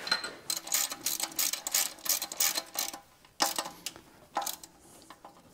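Socket ratchet wrench clicking rapidly as it runs down the bolt holding the reverse idler in a Farmall H transmission housing, then a few separate clicks as the bolt comes tight.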